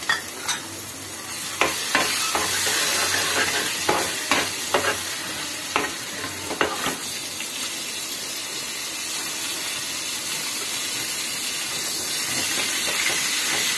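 Ginger-garlic paste sizzling in hot ghee in a metal pan for a tadka, a steady frying hiss. A metal ladle stirs and clicks against the pan several times in the first half.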